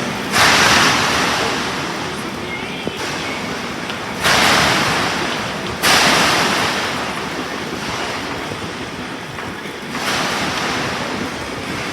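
Self-shielded flux-cored arc welding with Lincoln Innershield NR305 wire: a hissing arc that starts abruptly four times, near the start, at about four seconds, about six seconds and about ten seconds in, fading between starts.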